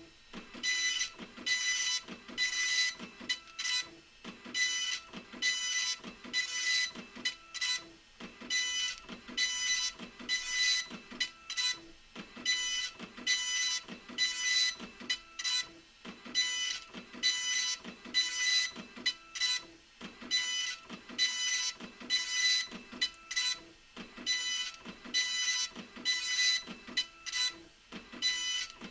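Epson LQ2550 24-pin dot-matrix printer printing: the print head buzzes in short repeated runs, about two a second, with brief pauses between them.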